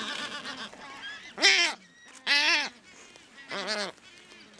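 Black-browed albatrosses calling: three loud, short calls about a second apart, each rising and falling in pitch, over fainter calls from the colony near the start.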